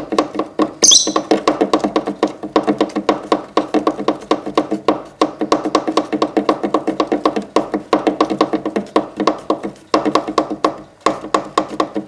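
Fingertips tapping a board in a rapid, steady run of ticks, about six a second, with a short break near the end. A rosy-faced lovebird gives one short, high chirp about a second in.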